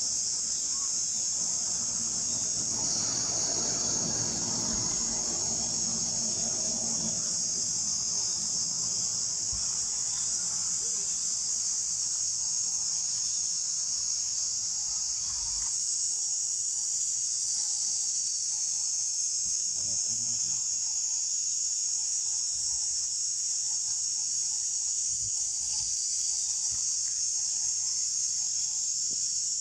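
Steady, high-pitched insect chorus buzzing without a break.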